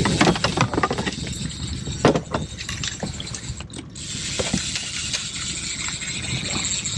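Fishing reel being cranked, with quick mechanical clicking, as a hooked landlocked salmon is reeled in.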